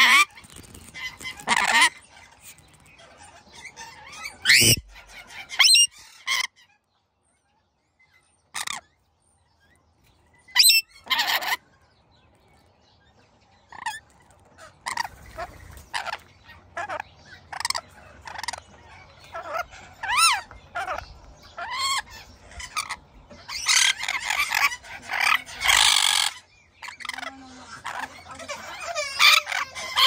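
Rainbow lorikeet calling: a string of short squawks and chattering calls. Its calls stop for a few seconds about a quarter of the way in, and come in a thicker run about four-fifths of the way through.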